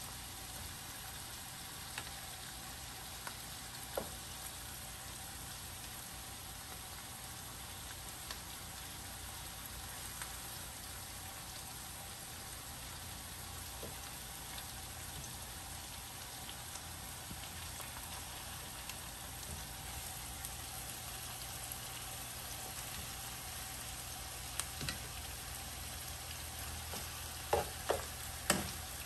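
Chopped onions and garlic sizzling steadily in oil in a frying pan. Near the end come a few sharp clacks as metal tongs lay raw chicken pieces into the pan.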